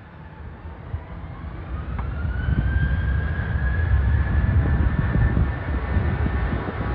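Boeing 737-800 jet's CFM56 engines spooling up toward takeoff thrust: a whine rising in pitch over about two seconds and then holding steady, over a low rumble that keeps growing louder.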